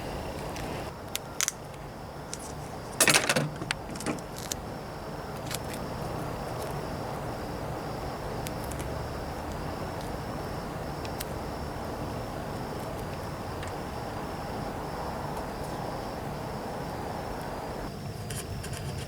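Duct tape being pulled off the roll and wrapped around a vacuum hose fitting: one loud rasp of tape a few seconds in, with scattered clicks and handling noises. A steady hum underneath stops near the end.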